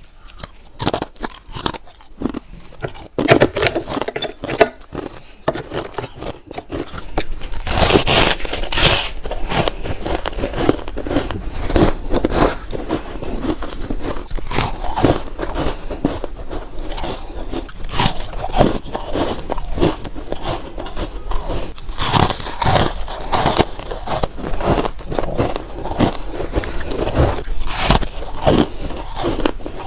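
A person biting and chewing crunchy freezer frost close to the microphone: a dense run of crisp crunches and crackles. It is sparser and quieter for the first few seconds, then louder and busier from about eight seconds in.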